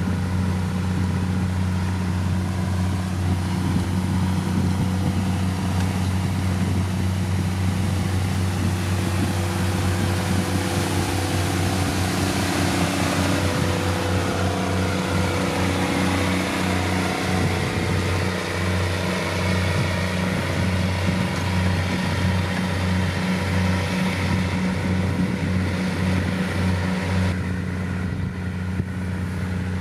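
Heavy diesel engine of road-building machinery running steadily under work, a deep constant hum with a rumble that pulses unevenly in the second half; the higher-pitched noise drops away near the end.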